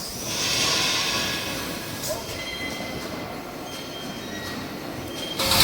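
Industrial machinery running, with a hiss that swells about half a second in, faint thin whines in the middle, and a sudden louder hiss at the very end.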